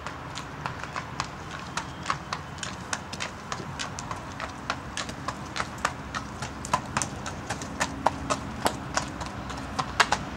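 Irish Thoroughbred gelding's hooves clip-clopping on a tarmac driveway at a walk, a few sharp strikes a second, louder near the end.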